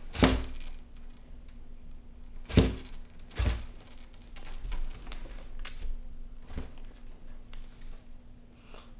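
Four dull knocks, the two loudest near the start and about two and a half seconds in, as an Argus monitor lizard gulps down a quail chick in a plastic tub, with a faint steady hum underneath.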